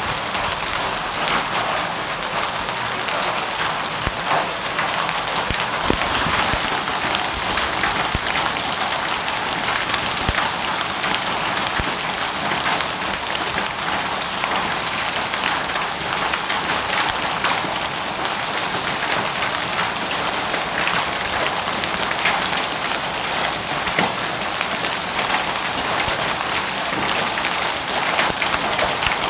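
Heavy hail and rain falling together: a dense, steady hiss of rain, with many sharp ticks of hailstones striking the ground.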